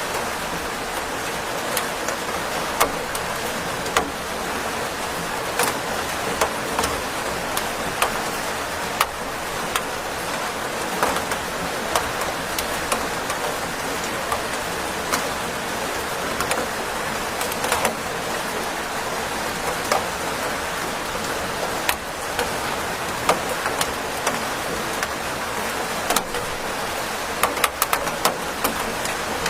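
Steady rainfall, a constant hiss with frequent, irregular sharp taps of individual drops striking a hard surface.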